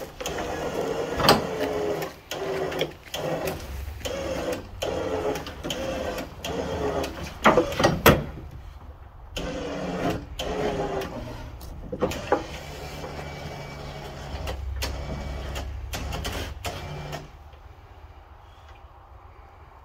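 Hand-operated hoist ratcheting in repeated strokes, roughly one click-and-pull a second, as it drags a 16-foot Douglas fir log back along a truck bed. The strokes thin out and stop near the end.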